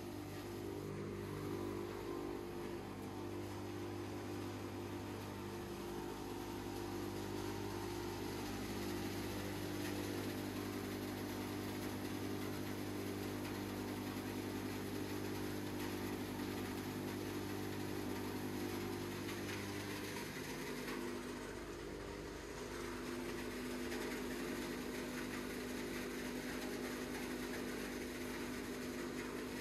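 Large hammer mill wood crusher running steadily under load, crushing fresh, high-moisture wood into sawdust: a continuous machine hum with a few steady tones. About twenty seconds in the deepest part of the hum drops away and the tone shifts, then it runs on evenly.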